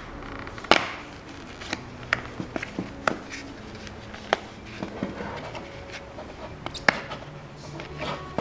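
Plastic lens of an Oakley A Frame snow goggle being worked out of its flexible frame by gloved hands. Irregular sharp clicks and snaps of the lens edge against the frame, with scraping and handling noise, the loudest snaps coming under a second in and again near the end.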